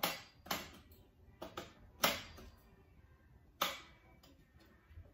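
Parts of a collapsible metal table frame clinking and clicking as they are handled and fitted together: about seven irregular sharp knocks, the loudest about two seconds in, some with a short metallic ring.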